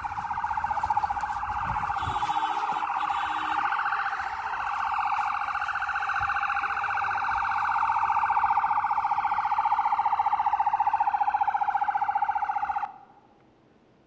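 Police vehicle siren sounding continuously at a steady pitch with a fast warble, then cutting off abruptly about a second before the end.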